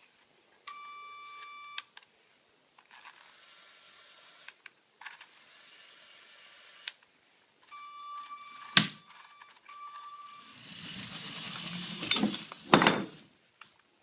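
Small electric motors of a Lego RC car whining in short stop-start bursts, with gear hiss between them. Several sharp knocks come near the end, where the running is loudest.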